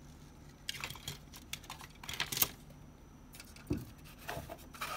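Light clicks and rattles of plastic model kit parts being handled, in two bunches of quick clicks: one about a second in and another near the end.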